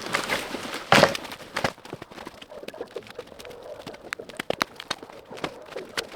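A quick, irregular run of knocks and clatters, hard objects striking one another, with one loud crash about a second in.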